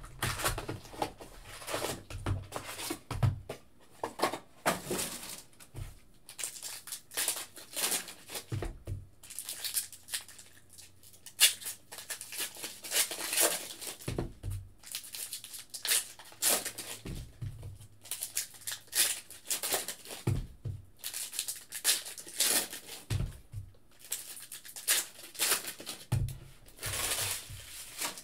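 Foil packs of 2020-21 Upper Deck Trilogy hockey cards being torn open and crinkled by hand, a run of irregular rustling tears, with occasional soft thumps.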